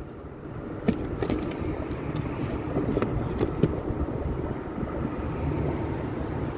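Steady low rumble of road traffic, with a few light clicks and knocks over it.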